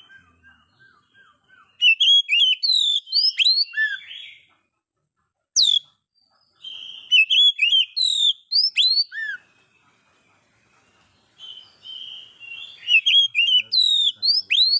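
Oriental magpie-robin (kacer) singing loudly in three bouts of rapid varied whistles and sweeping notes, with short pauses between them. The song is the territorial singing of a male calling out a rival. A fainter run of short repeated notes comes in the first two seconds.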